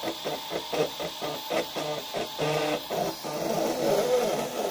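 Stepper motors of a DIY 3D printer built from DVD/CD-ROM drive mechanisms, whining in pitched tones as the print head and bed move. The first three seconds are a run of short buzzes about three a second; from about three seconds in comes a longer, warbling stretch of movement.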